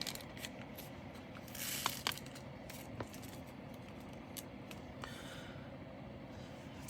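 Light handling of small plastic bags and containers of diamond-painting drills: scattered small clicks and a brief rustle.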